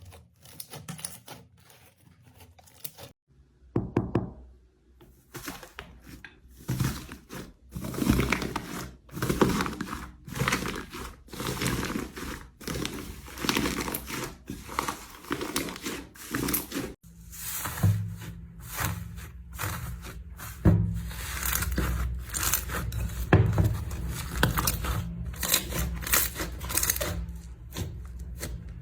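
Slime being squeezed, poked and stretched by hand close to the microphone, crackling and popping with many small clicks and squishes. The sound changes abruptly about three seconds in and again past the middle.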